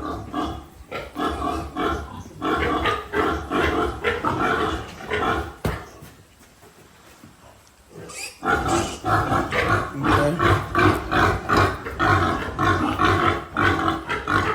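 Piglet squealing in rapid short cries while restrained for injections. The cries pause for about two seconds midway, then resume louder.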